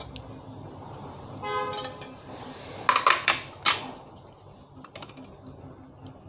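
Metal cutlery clinking sharply against a ceramic plate, a quick cluster of clinks about three seconds in and one more just after, as a spoon and fork are set down. A brief high-pitched squeak comes a second or so before.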